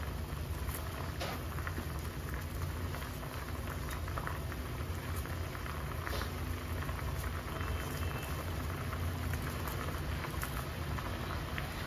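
Coconut-milk broth simmering in a stainless steel saucepan: steady bubbling with many small pops, over a low steady hum.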